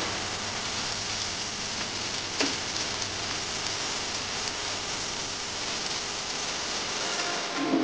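Banana fritters deep-frying in a pan of hot oil: a steady, even sizzle of bubbling oil, with one light tap about two and a half seconds in.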